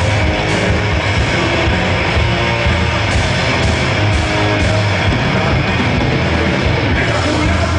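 Heavy metal band playing live: distorted electric guitars over bass and drums, loud and steady, with cymbal strokes on the beat.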